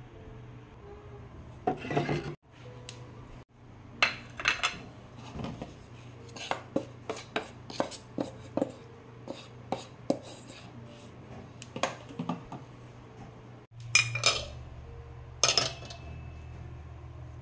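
Wooden spatula scraping and tapping in a black pot as cooked egg is scooped out onto a plate: a run of quick clicks and scrapes, with a few louder clattering bursts, over a faint steady low hum.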